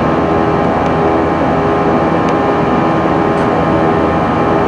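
Jet airliner cabin noise during the climb after takeoff: engines running and air rushing past the fuselage as a loud, steady noise, with several steady engine tones humming through it.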